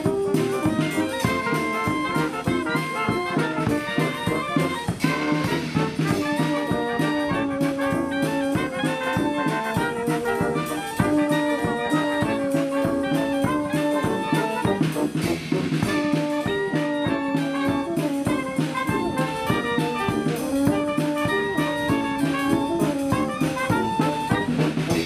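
Brass-led music, trumpets and trombones over a drum kit, playing steadily with a lively beat.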